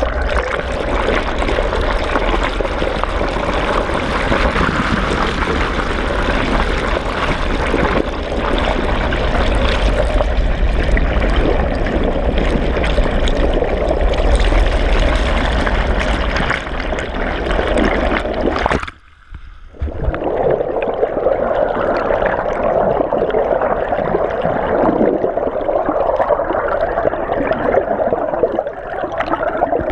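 Water rushing and gurgling around a camera held under water, steady throughout, with a low rumble in the first half. The sound drops out briefly a little past halfway.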